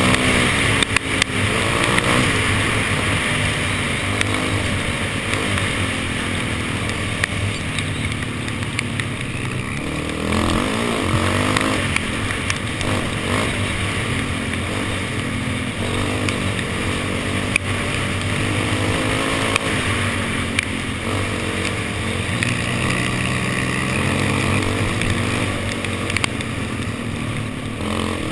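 Quad (ATV) engine running hard at speed, its pitch rising and falling as the throttle opens and closes and gears change, with occasional knocks from the machine jolting over ruts.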